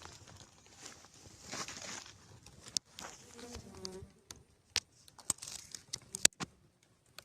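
Bees buzzing around a honeycomb during a honey harvest, broken by several sharp clicks and crackles.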